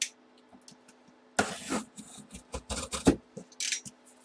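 Helmet box packaging being handled and opened: a series of short rubbing and scraping strokes with a few sharp knocks, starting after about a second and a half.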